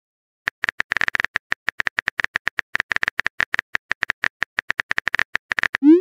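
Phone-keyboard typing sound effect: a fast, uneven run of short clicks, about eight a second, as a text message is typed. Near the end comes a short rising sweep tone, the message-sent sound.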